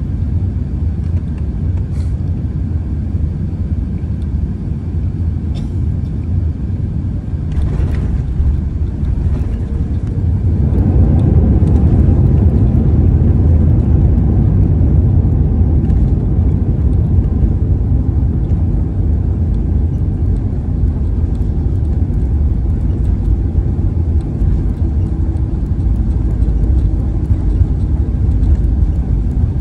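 Cabin noise inside an Airbus A380 taxiing on the ground: a loud, steady low rumble of engines and rolling, which grows louder about ten seconds in and stays up.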